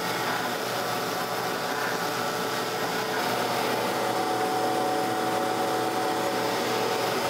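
Surface grinder running, its grinding-wheel spindle turning at speed with a steady hum and a few faint even tones.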